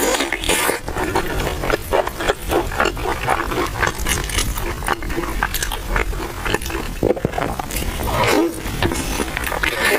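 Close-up chewing of crispy oil-skin buns: a dense run of crunchy, crackling bites and chewing.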